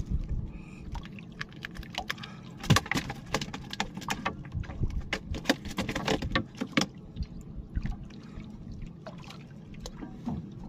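Irregular clicks and knocks of handling in a small fishing boat, busiest in the middle, over a steady low rumble of water.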